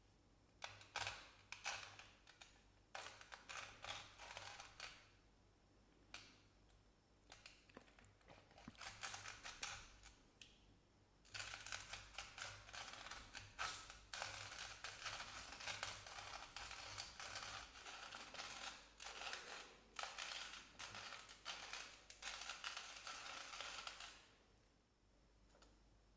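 Hand-cranked ceramic burr coffee grinder crunching through coffee beans: a long run of crisp grating, crackling strokes as the crank turns, with a couple of short pauses, stopping near the end.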